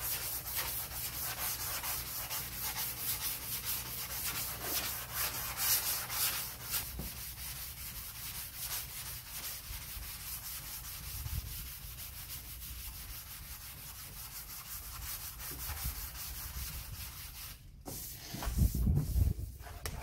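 Sandpaper on a hand sanding block scraping back and forth over a car's quarter panel coated in high build primer, in quick, rough strokes. This is block sanding to take off the guide coat and level and feather the primer. The sanding stops near the end, followed by a few dull thumps.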